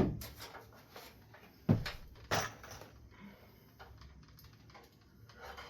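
Wooden shelf pieces being handled: a sharp knock at the start, another under two seconds in and a third shortly after, then a few softer clicks and taps.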